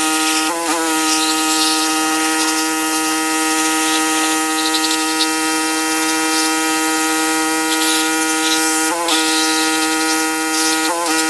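Pressure washer running with a steady high-pitched whine, its pitch sagging briefly under load about half a second in, at about nine seconds and again near the end.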